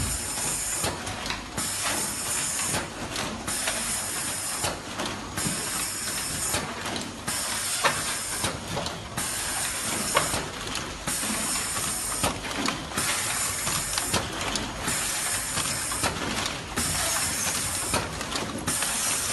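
Toothpaste cartoning machine running: steady mechanical clatter with a loud hiss that breaks off briefly about every two seconds, and scattered sharp clicks.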